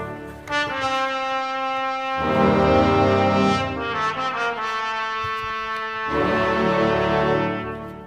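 Background music: held, many-toned chords that change about every two seconds.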